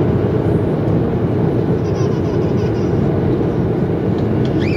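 Steady cabin noise inside a jet airliner on approach: the even, low-pitched rush of engines and airflow, unchanging throughout.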